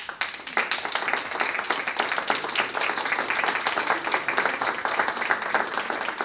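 An audience applauding, many hands clapping in a dense, steady patter. It starts suddenly and swells within the first half second.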